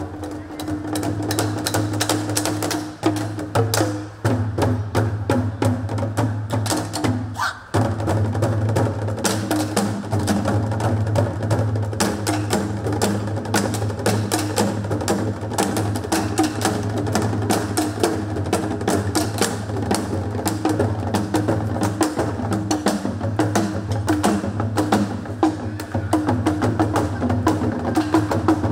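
Chinese drums played with sticks in fast, dense strokes and rolls, on large barrel drums (tanggu) and a set of tuned paigu drums, over backing music with a steady low bass. The drumming breaks off briefly about seven seconds in.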